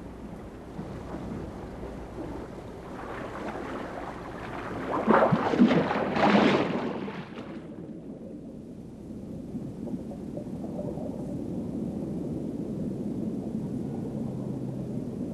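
Wind and sea noise on an open boat, then a loud rushing splash as a diver goes into the sea about five seconds in. From about eight seconds the sound turns dull and low, heard from underwater.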